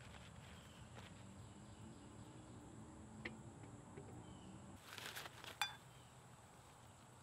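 Small potatoes dropped by hand into a steel camp mug of water: a soft knock about three seconds in, then a brief splash and a sharp clink about five seconds in, over faint woodland background.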